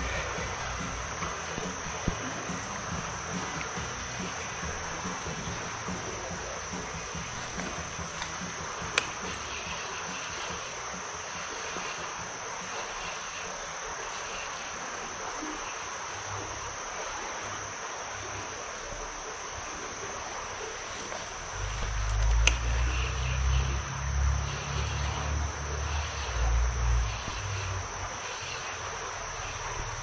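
Insects trilling steadily in one high, unbroken tone over a faint hiss. A stretch of low rumbling comes in about three-quarters of the way through and lasts several seconds.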